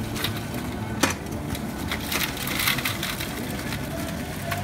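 Live crawfish poured from a galvanized washtub into a perforated metal boiling basket: a continuous crackling clatter of shells tumbling against the metal and each other, with one sharp knock about a second in, over a low steady rumble.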